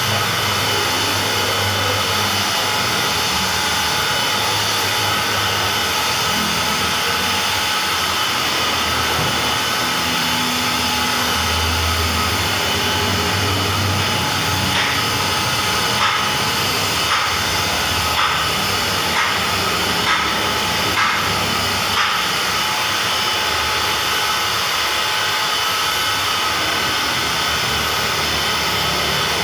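Electric rotary car polisher running steadily, its spinning pad working over a car's painted door panel. A run of light ticks comes about once a second in the middle.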